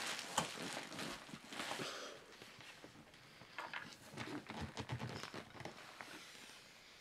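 Irregular light clicks and clatter with short scraping noises, busiest in the first two seconds and again in the middle, trailing off near the end.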